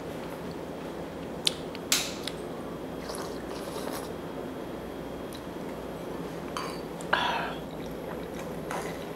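Metal spoon clinking against ceramic bowls a few times during eating: sharp clinks about one and a half and two seconds in, and another near seven seconds that rings briefly, over a steady low room hum.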